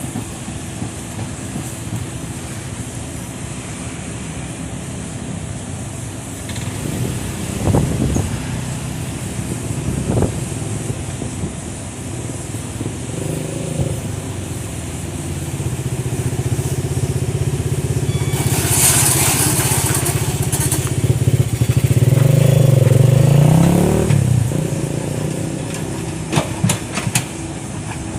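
Excavator's diesel engine running under load while loading a dump truck, its revs building in the second half to a peak near the end and then dropping back. A hissing rush lasts a few seconds partway through, and there are a few sharp clanks near the end.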